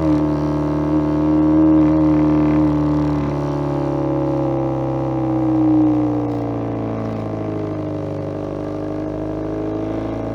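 Homemade electronic exhaust sound effect imitating a Subaru EJ20 flat-four with equal-length exhaust: a continuous engine-like drone with many overtones, held at a roughly steady pitch that sags slightly and comes back up near the end.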